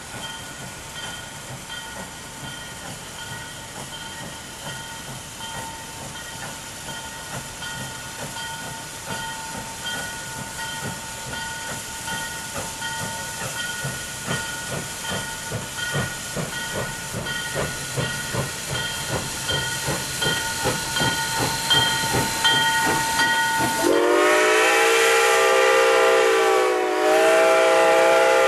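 Steam locomotive No. 73, a 2-8-2 Mikado, pulling away with a passenger train: its exhaust chuffs grow steadily louder as it approaches. About 24 seconds in, its steam whistle sounds loudly in two blasts, a chord of several notes.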